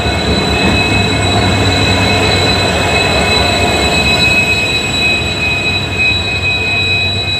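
Indian Railways diesel locomotive passing close by as the train arrives and brakes. A deep engine rumble runs under a steady high squeal from the braking wheels.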